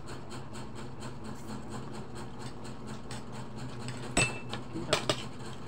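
Cutlery clinking against ceramic dinner plates: three sharp clinks about four and five seconds in, the first with a brief ringing tone, over a steady low hum.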